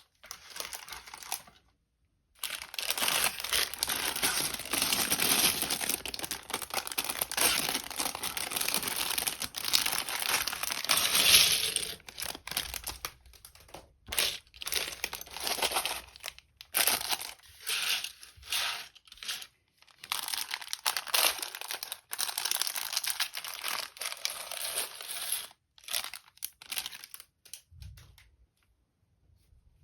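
Plastic LEGO parts bags crinkling and tearing as they are handled and opened: a long spell of continuous crinkling, then shorter separate rustles.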